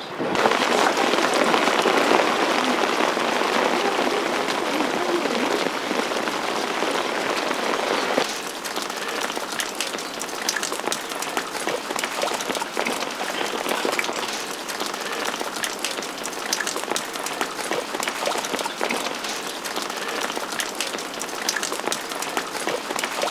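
Steady rain falling, with many individual drop hits close to the microphone. About eight seconds in, the sound changes from a fuller, denser wash to a thinner one with sharper separate drop hits.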